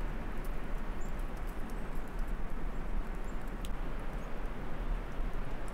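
Wind buffeting the microphone in a steady low rumble, with footsteps crunching on snow and ice and faint sharp clicks coming through.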